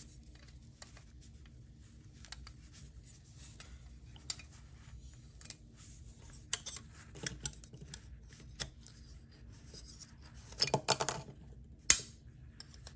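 Quiet handling noise of a die-cast model truck's metal body and small plastic parts being worked apart by gloved hands: scattered small clicks and taps, a short run of scraping clicks late on, and one sharp click near the end.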